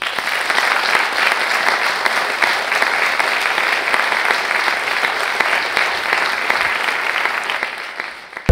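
Audience applauding, a dense, steady clapping that starts suddenly and dies away near the end.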